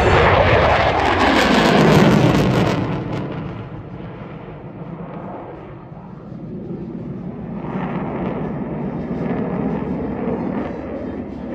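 Twin-engine F-15 Eagle fighter jet passing low overhead: loud jet-engine noise whose pitch sweeps sharply down over the first two seconds or so. It then falls to a fainter, steady rumble that builds again later as the jet circles around.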